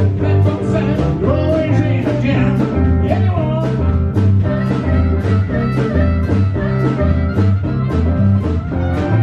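Blues band playing live: a stepping bass line and a steady drum beat, with guitar over them.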